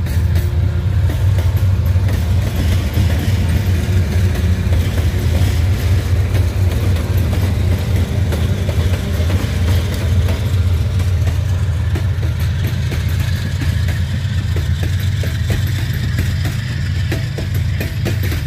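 Diesel locomotives hauling a limestone train pass close by under power, their engines giving a loud, steady low rumble.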